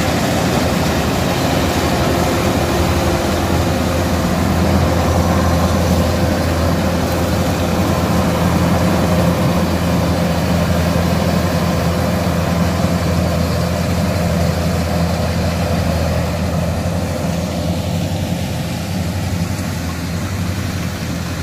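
Kubota DC70 combine harvester's diesel engine running steadily with a deep, even drone, easing slightly near the end.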